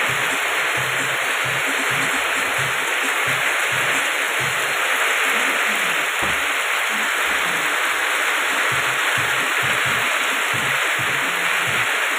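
Heavy rain pouring down steadily, an even dense hiss with irregular heavier drops knocking and splashing, as water streams off the edges of corrugated metal roofs.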